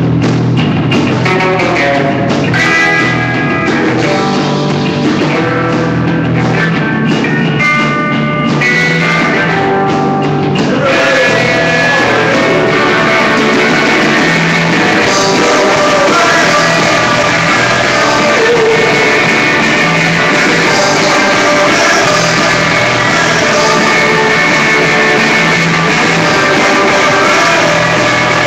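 Rock band playing live: electric guitars over a drum kit, loud and continuous. About eleven seconds in, the sound grows fuller and brighter as the whole band comes in harder.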